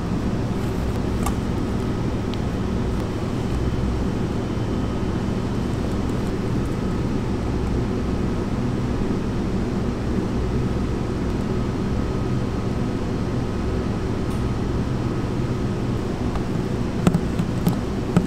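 Steady low machine hum of kitchen equipment. Near the end come a few sharp clicks, a spatula knocking against a stainless steel mixing bowl.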